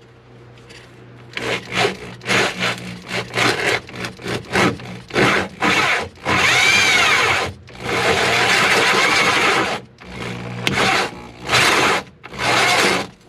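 Power drill cutting a hole through the vinyl-covered dashboard panel. It comes in a string of short bursts, then two longer runs of about a second and a half each, then two more short bursts near the end.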